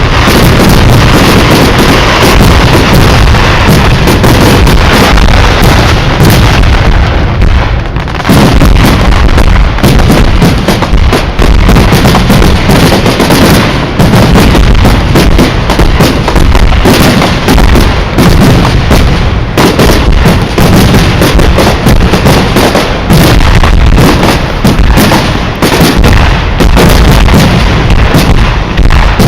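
Fireworks display: a dense, unbroken barrage of shell bursts and bangs, very loud, with a short lull about a quarter of the way through.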